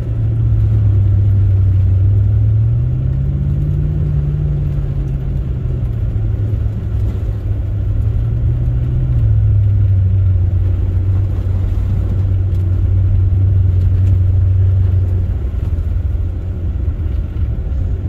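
Chrysler 300C's Hemi V8, breathing through a Hellcat stock exhaust with an extra resonator, heard from inside the cabin while driving on a snowy road. It makes a steady low drone that rises in pitch about three seconds in as the engine picks up, settles back, lifts briefly again around nine seconds, and softens a little near the end.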